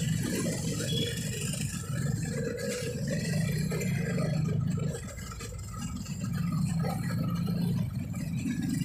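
Motor vehicle engines idling in stopped traffic: a steady low hum that dips briefly about five seconds in.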